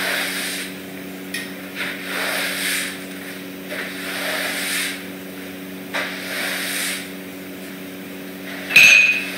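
Broom bristles swishing across a hard floor in a series of short sweeping strokes, with a sharp clack near the end. A steady low hum runs underneath.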